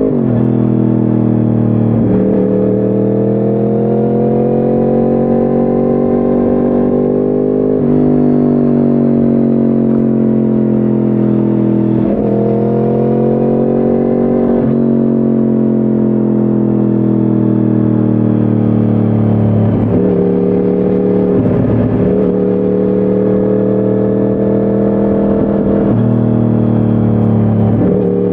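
A 2010 Yamaha R1's crossplane inline-four, running through a decatted Akrapovic exhaust, heard onboard while riding. The engine note climbs slowly under throttle and falls off sharply at each gear change, several times over.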